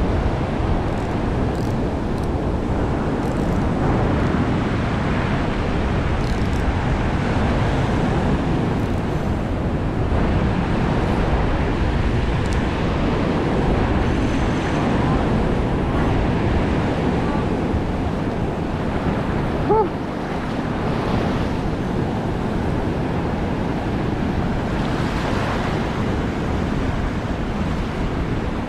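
Surf breaking and washing over a shallow reef and beach, a steady rush of water with wind buffeting the microphone. A short squeak about two-thirds of the way through.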